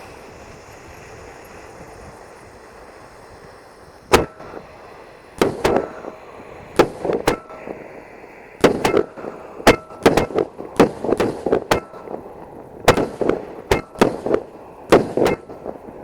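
A consumer firework cake that had been frozen for 24 hours firing: after a few seconds of steady hiss, an uneven series of about twenty loud bangs starts about four seconds in, some with a short ringing tail.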